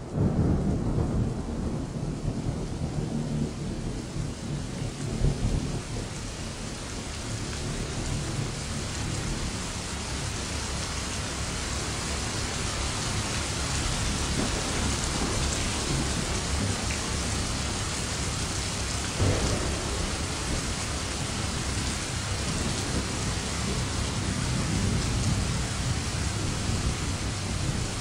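Heavy rain pouring steadily, with low thunder rumbling, strongest in the first few seconds and swelling again later.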